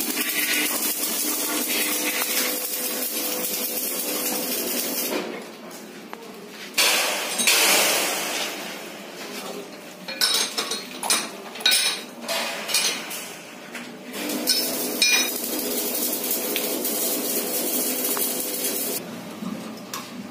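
Metal lathe running with its steady working noise and a faint hum, broken for a few seconds in the middle by a run of sharp metallic clinks and knocks.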